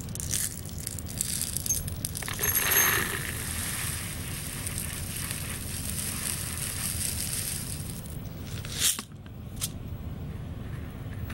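Salt pouring through a silicone funnel into a salt grinder, a steady grainy hiss with a louder rush about two and a half seconds in. A sharp knock comes near the end.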